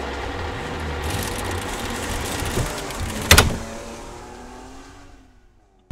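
Logo intro sound effect: a low rumble under a noisy sweep, then one sharp hit a little over three seconds in that rings on and fades away.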